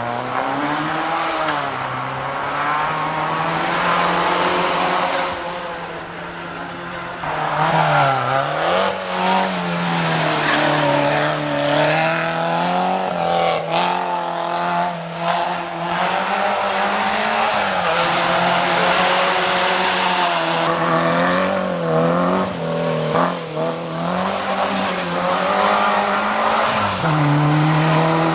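Small four-cylinder Group N race cars of the 1300–1600 cc class climbing a hillclimb course, engines at high revs, the pitch rising and falling again and again as they brake, change gear and accelerate out of the hairpins.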